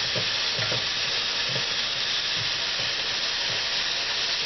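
Tap water pouring into a plastic container of bean thread noodles in a stainless steel sink, a steady hiss, filling it to soak the noodles. A few soft, low knocks come through it as a hand moves the noodles in the container.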